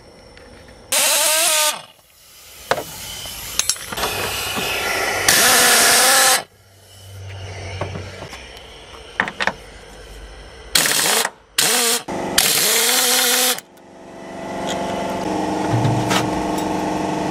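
Power tool running in five short bursts of about a second each, with a wavering motor pitch, as suspension and brake fasteners are undone. Near the end a steady motor hum starts up.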